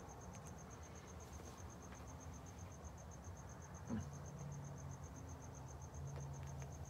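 Faint, steady cricket chirping: one high note pulsing evenly several times a second over a low hum.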